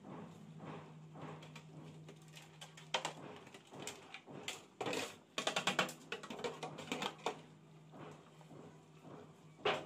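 A spoon stirring sauce in a cooking pot, with irregular clicks and taps of the spoon against the pot, busiest around the middle and again near the end, over a low steady hum.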